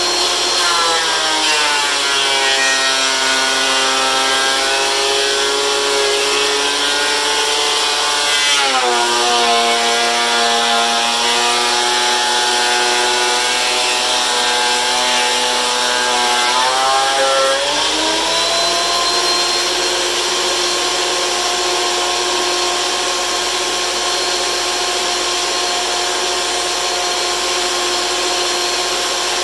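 DeWalt benchtop thickness planer running and cutting wood. About a second in, its whine drops in pitch as the boards take the cutterhead's load, and it sags further near nine seconds. About eighteen seconds in it climbs back to a steady free-running whine as the boards clear the machine.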